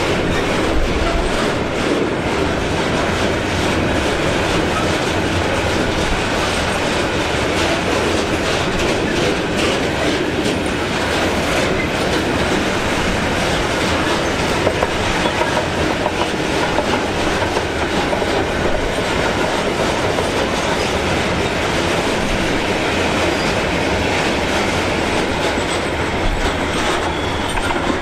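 Freight train of self-discharging hopper wagons rolling past, with a steady loud rumble and wheels clicking and clattering over the rails.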